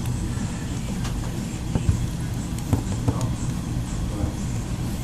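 A few small sharp clicks and taps of a Phillips screwdriver and tiny screws being taken out of a phone's frame, over a steady low hum.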